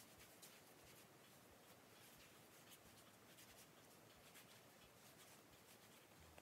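Faint, soft rubbing and scuffing of bread dough being kneaded by hand on a floured countertop, in irregular strokes.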